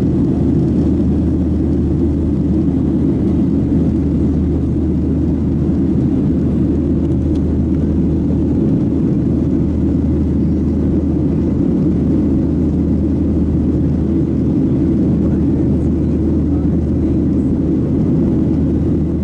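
Steady low rumble of a Boeing 737-700's CFM56 turbofan engines and airflow, heard inside the passenger cabin as the airliner climbs out after takeoff.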